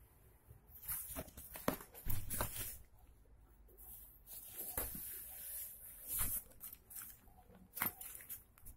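Nylon fabric of a tactical backpack rubbed and handled by hand: irregular scratchy rustles with a few short clicks and knocks from webbing and buckles.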